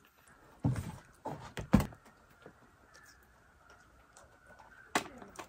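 Chopsticks and a metal camping pot being handled at a table: a couple of dull knocks, then one sharp clack about two seconds in, and a short click near the end.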